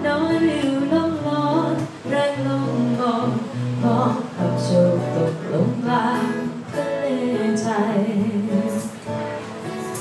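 Live acoustic performance of a Thai pop-rock song: a woman singing with a strummed acoustic guitar.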